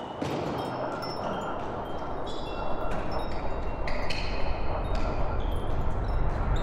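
Background music: scattered high, chime-like notes ringing and fading over a low rumbling swell that grows louder through the second half.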